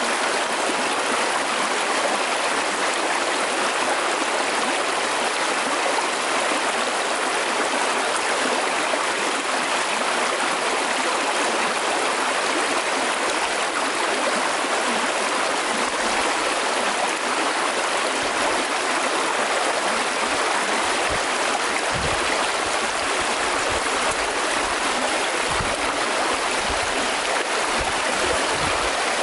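Shallow stream rushing steadily over rocks, an even, unbroken water noise. A few low bumps come near the end.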